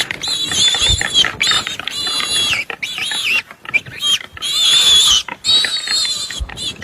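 An animal giving a rapid series of loud, high-pitched cries, each rising and falling in pitch, with brief pauses between them.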